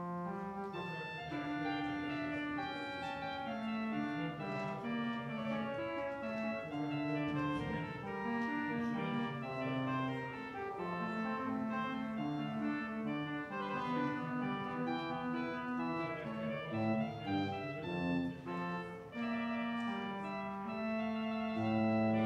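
Organ playing slow music of held chords with a moving melody line, the notes changing every half second to a second or so.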